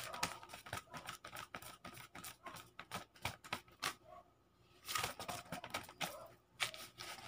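A bundle of paper banknotes waved as a hand fan, rustling and snapping in quick dry ticks. It stops for about a second in the middle, then starts again.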